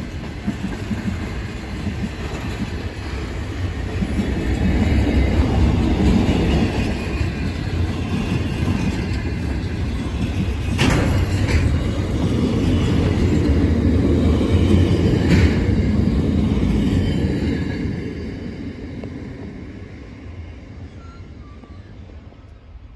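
Container freight train wagons rolling past on a curve: a steady rumble of steel wheels on rail, with faint high wheel squeal and two sharp knocks about halfway through. It fades as the last wagons draw away near the end.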